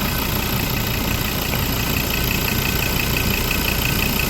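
Diesel engine of a 2018 Ford Endeavour idling steadily with the bonnet open.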